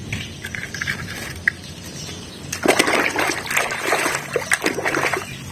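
Water splashing and sloshing as a plastic toy car is washed, getting louder and busier from about halfway through, with small clicks and knocks of the toy against the water and container.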